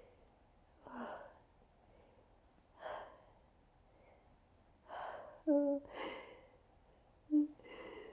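Pre-sneeze breathing from a person with hay fever: a series of short, sharp breaths every second or two, with a brief voiced gasp about two-thirds in and another near the end, as an allergic sneeze builds.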